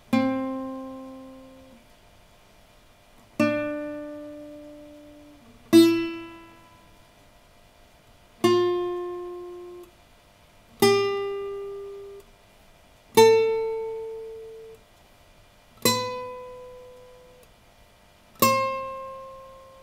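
Guitar plucked one note at a time, eight single notes about two and a half seconds apart. Each rings out and fades, and each is a step higher in pitch than the one before.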